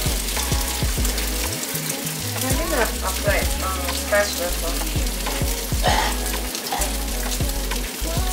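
Halved beef breakfast sausages sizzling as they fry in a pan, a steady crackling hiss, under background music with a beat and a bass line.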